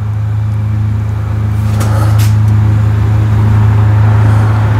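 Steady low machine hum with a series of even overtones, growing a little louder over the first two seconds; two brief clicks about two seconds in.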